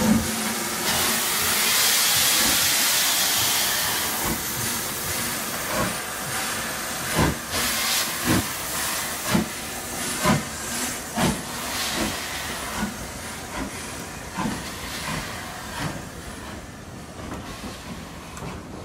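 LNER B12 4-6-0 steam locomotive moving off with its train: a loud burst of steam hiss for the first few seconds, then a slow, regular beat about once a second that fades as the engine draws away.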